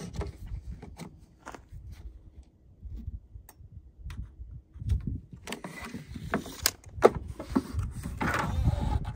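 Handling noises at a miter saw table: scattered clicks and scraping of a tape measure and a vinyl plank being marked, then slid and positioned, over a low rumble. The saw itself is not running.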